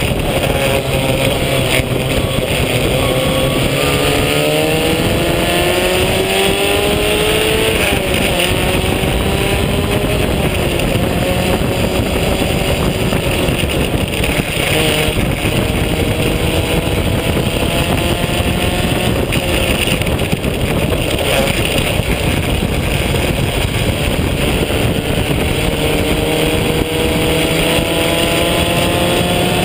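Onboard sound of an open-wheel vintage race car's engine under hard acceleration. Its pitch climbs for several seconds, drops back at a gear change, holds, then climbs again near the end, over steady wind and road noise.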